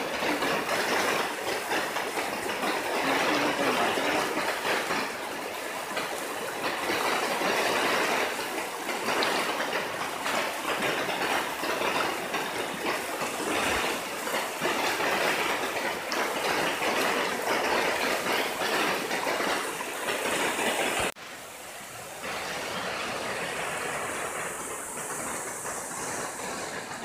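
Steady rush of flowing river water. About 21 s in it drops abruptly to a quieter, hissier rush.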